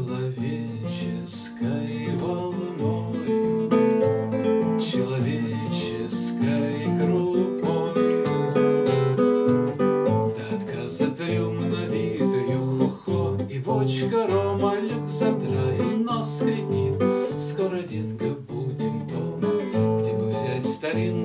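Classical acoustic guitar strummed in a steady rhythm, an instrumental passage between verses of a song.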